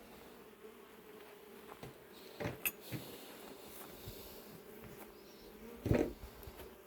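Honey bees buzzing steadily around the hive, with a few short knocks; the loudest comes about six seconds in.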